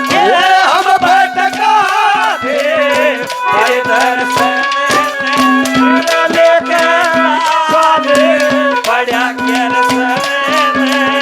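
Live Haryanvi ragni accompaniment: a melody over a steady held drone, with fast rattling percussion, as an instrumental stretch between sung lines. A sung line tails off in the first couple of seconds.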